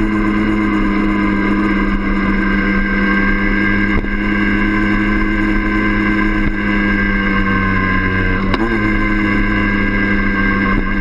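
Yamaha DT50M's 50 cc two-stroke single-cylinder engine running at a steady cruising speed, a constant droning tone, with a brief change in pitch about eight and a half seconds in.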